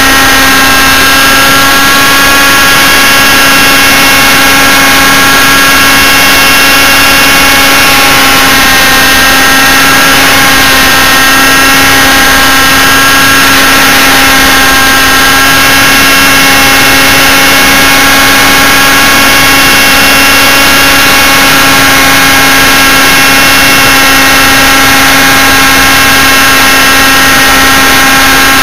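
Model helicopter's engine and rotor running steadily in flight, heard from very close by the onboard camera, loud and nearly constant in pitch with only a slight waver.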